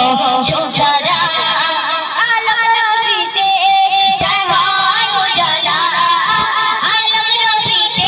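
A woman singing a Bengali gojol (Islamic devotional song) into a microphone, one voice in long, ornamented lines whose notes bend and waver.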